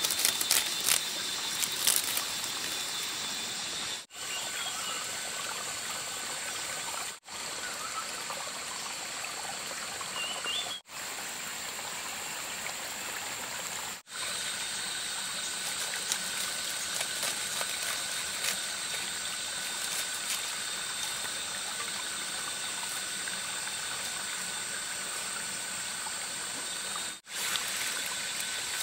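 Steady trickling, flowing water, broken by a few brief gaps.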